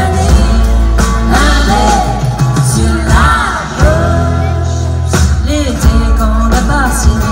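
A song with a singing voice over a strong bass line and drums.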